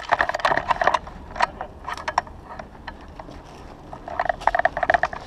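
Airsoft guns firing: a rapid burst of shots in the first second, a few single shots around the middle, and another rapid burst of about a second near the end.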